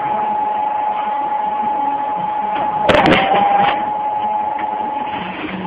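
Motor-driven shearing machine running with a steady whine; about three seconds in the blade comes down and cuts with a sharp crack, the whine dipping briefly under the load before it settles.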